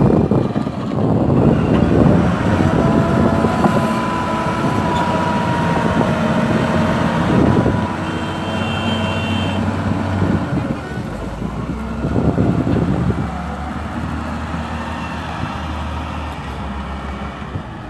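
Caterpillar 950F wheel loader's diesel engine running close by, surging in repeated bursts under load as the loader works its bucket. A thin steady whine runs for a few seconds in the first half.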